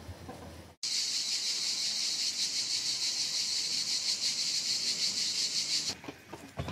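Insects chirring: a steady, high-pitched buzz of very rapid pulses that cuts in abruptly about a second in and cuts off abruptly about a second before the end.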